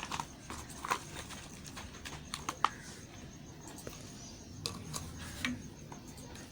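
Knife cutting and carving a bar of hard soap, giving irregular sharp clicks and crackles, with a quick cluster about two and a half seconds in.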